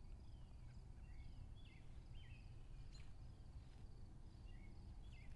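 Faint outdoor evening ambience: a handful of short, falling bird chirps scattered through, over a steady high insect trill and a low rumble.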